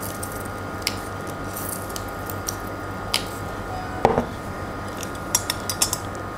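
Hand-held stainless steel lemon squeezer pressing a lemon half over a glass: a few light clicks and metal taps, a louder knock about four seconds in, and several quick clicks near the end as the hinged handles are opened. A steady background hum runs underneath.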